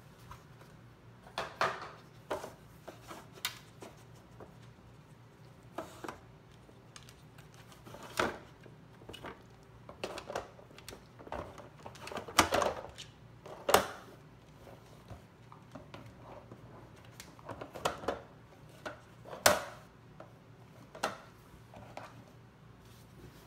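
Irregular plastic clicks and knocks from a Trixie Activity Poker Box dog puzzle as a beagle puppy noses and paws at its boxes and tray, shoving a box across the hardwood floor. The knocks come a second or two apart, at uneven times, with the loudest about halfway through and a little over two-thirds of the way in.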